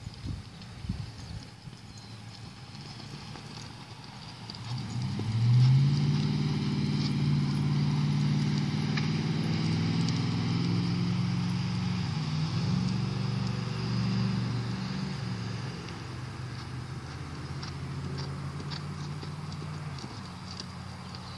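A horse's hooves beating on a dirt arena as it is ridden at a lope. From about five seconds in, the loudest sound is a steady engine hum from a passing vehicle; it swells in at first and fades out by about sixteen seconds in.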